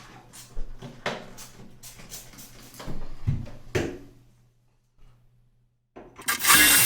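A few light clicks and knocks of handling, then a power drill fitted with a diamond bit starts up a little after six seconds in and runs steadily at speed, boring the last anchor hole through porcelain tile. The drill is the loudest sound.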